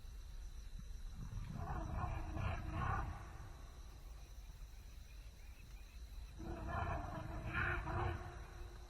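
Elephant roaring twice, each roar a deep, rumbling call about two seconds long, the second starting about five seconds after the first.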